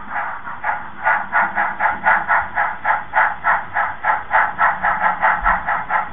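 Steam locomotive chuffing from the HOn3 model of Rio Grande No. 268 on the move: a steady beat of about three to four chuffs a second, growing sharper and louder about a second in.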